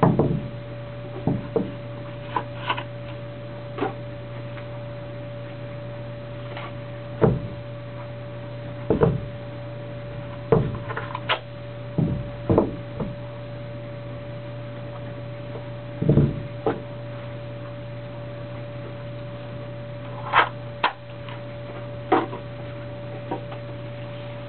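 Irregular knocks and clicks of a knife and its leather sheath being handled, turned and set down on a tabletop, over a steady electrical hum.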